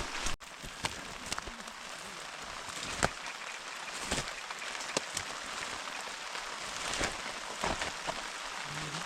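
Steady rain falling, an even hiss broken by scattered sharp taps of drops striking close by.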